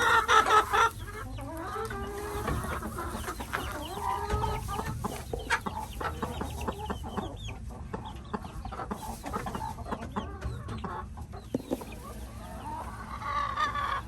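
Hens clucking in a chicken coop, a run of many short calls with scattered clicks and taps among them, loudest in the first second.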